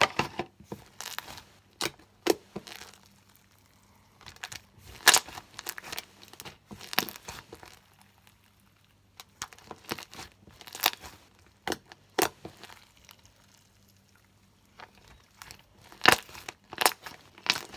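Plastic being handled: irregular crinkling and sharp clicks, in scattered bunches with short quiet gaps between.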